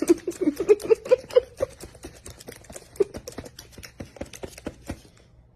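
A pet crunching and chewing food: a rapid, uneven run of small clicks. A string of short, low squeaky sounds comes in the first second and a half and one more about three seconds in. The chewing thins out near the end.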